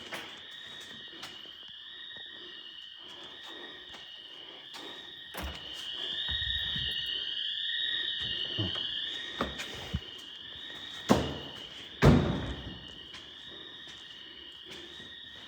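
Store's electronic alarm sounder blaring, a high tone rising in a repeated sweep about once a second. Several knocks are heard over it, then two heavy thuds near the end, which are the loudest sounds.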